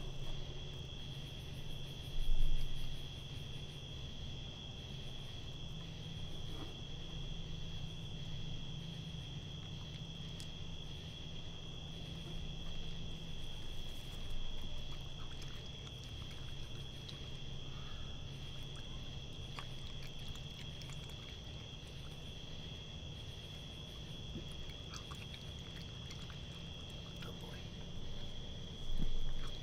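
Raccoon feeding, with faint small clicks and chewing as it picks up and eats grapes and dry cat food, over a steady high insect trill and a low steady hum. Two louder thumps, about two seconds in and near the end.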